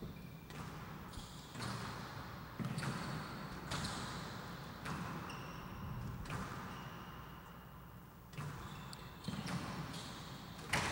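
Squash ball struck by rackets and rebounding off the walls of a glass court during a rally: sharp knocks at roughly one a second, with short high squeaks of shoes on the court floor between them.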